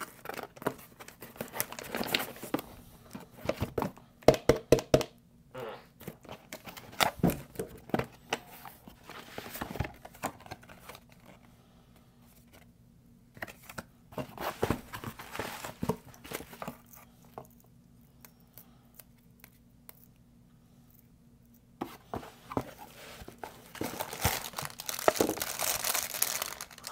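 Cardboard packaging being opened and handled: rustling, tearing and scattered knocks as boxes are pulled out and set down, with quieter pauses in the middle. Near the end a clear plastic wrapper crinkles as it is handled.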